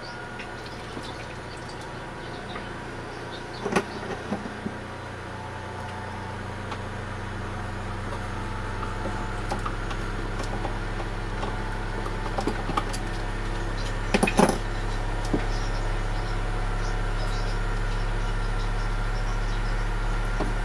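A few sharp knocks and clanks from tools and pipes under a kitchen sink. They sit over a steady low hum that grows slowly louder, with the loudest cluster of knocks about 14 seconds in.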